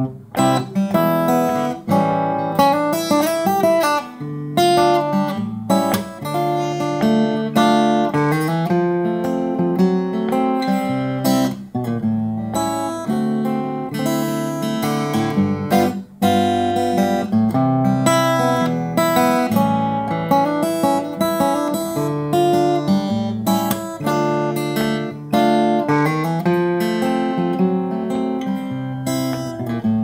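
Seagull S6 Spruce acoustic guitar, with a solid spruce top and wild cherry back and sides, strummed in a steady rhythm through a changing chord progression.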